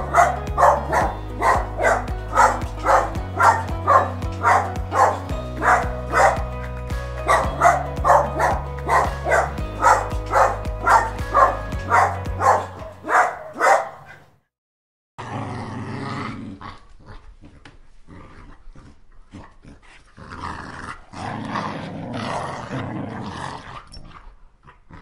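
Upbeat background music with a steady beat and a stepping bass line for a little over half the time, then a sudden stop. After a short gap a small dog growls in play in uneven spells while tugging a rope toy.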